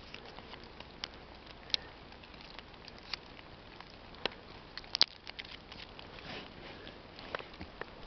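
Fingers rubbing and picking flakes off the scaly bark of a big pine: a few sparse, dry clicks and crackles over a faint hiss, the sharpest about five seconds in.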